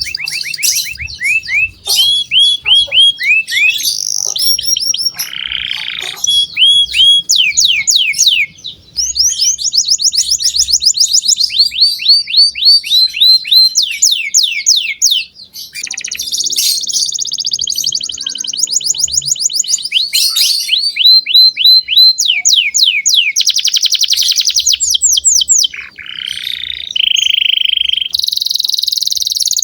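Canary singing continuously in fast trills of repeated notes, switching to a new trill or roll every second or two. This is a vigorous 'gacor' song used as a lure to prompt young canaries to sing.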